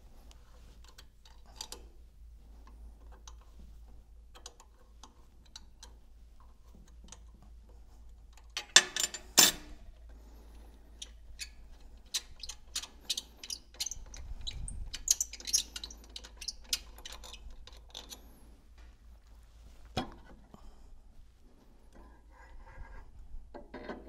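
Allen key working the seal-plate bolts of a pump: a string of light metallic ticks and clicks, with a louder clatter of metal on metal about nine seconds in.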